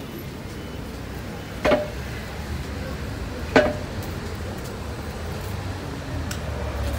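Street-market ambience: a steady murmur of passers-by over a low rumble, broken by two sharp clinks with a brief ring, about two seconds apart.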